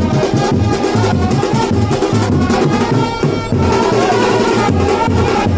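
Music with a steady, fast drum beat and a melody line above it.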